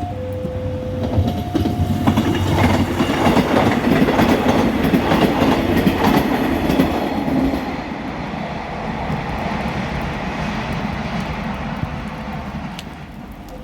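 Level-crossing warning alarm sounding two alternating tones, then a train passing through the crossing, its wheels clattering over the rails. The train is loudest a few seconds in and fades away near the end.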